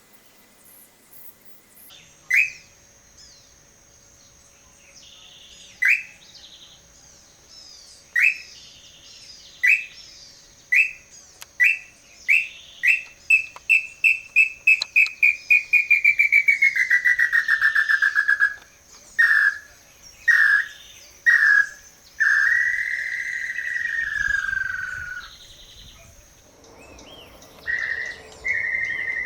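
Whistled pé-vermelho tinamou call, the call used to lure the bird. Clear single notes spaced a few seconds apart speed up into a rapid run and merge into a long note that slides down in pitch. Then come several separate notes and another long falling whistle.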